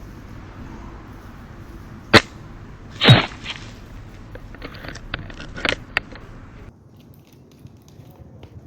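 Several sharp clacks and knocks: one about two seconds in, the loudest about three seconds in, and a quick cluster around five to six seconds. They sit over a steady rustling hiss that cuts off suddenly near the end.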